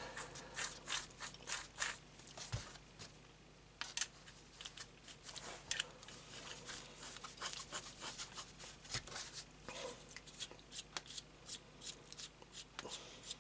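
Small irregular clicks and rubbing as hands work a steel collet-chuck spindle back and forth in its bearing housing to check for end float, with one sharper metallic click about four seconds in.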